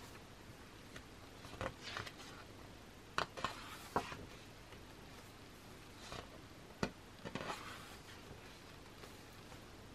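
Thick photobook pages turned by hand: a series of short paper swishes and snaps as each large page flips over, several in the first eight seconds, over a faint hiss.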